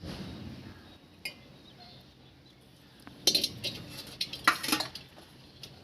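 Metal spoon clinking and scraping against a cooking pan as boiled eggs are stirred into curry gravy. A single click about a second in, then a quick run of clinks from about three seconds in.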